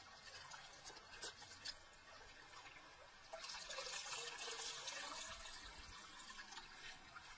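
Water pouring from a tipped clay pot over a hand as the rinse water is drained off the bugs, a splashing stream starting about three seconds in and lasting about two seconds. Before it, a few faint clicks of hands working in the pot.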